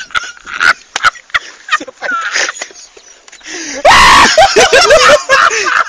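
A sudden loud crash of an acoustic guitar striking a man's head about four seconds in, followed by the man screaming. Before it there are short shouts and clicks.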